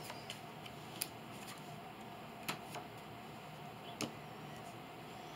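A handful of short, light clicks and taps as trading cards are handled and laid down on a playmat, over a faint steady room hum.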